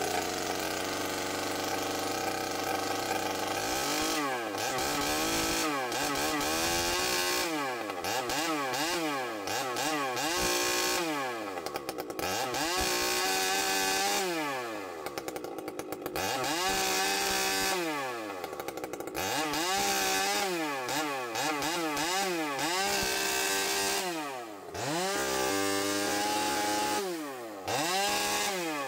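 Holzfforma G395xp 95cc two-stroke chainsaw, piped, running flat out through a big log with a 36-inch bar and .404 chain. It is steady at first, then the engine speed sags and recovers over and over, about once every second or so, as the heavy chain loads it in the cut.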